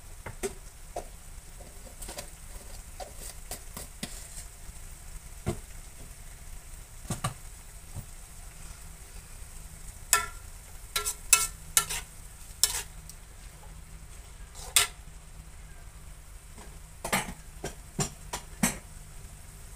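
A metal spatula scraping and clanking against a wok as mixed vegetables are stir-fried, over a faint sizzle. The scrapes come in quick clusters, the loudest about halfway through and again near the end.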